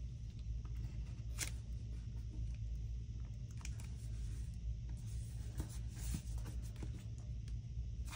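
Faint handling sounds of paper and sticker sheets, with scattered light clicks and short rustles, over a steady low hum.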